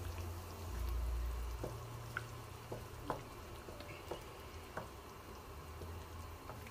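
Thick bolognese sauce of minced beef and tomato simmering in a frying pan while a wooden spoon stirs it, with scattered soft clicks and pops over a low steady rumble.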